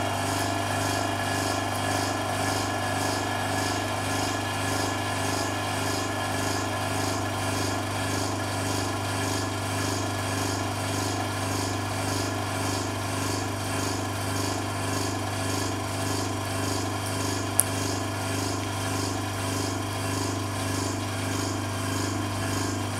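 Electric vacuum pump running steadily, drawing down a vacuum chamber, with a strong low hum and a slight regular pulsing. A single brief click sounds about three-quarters of the way through.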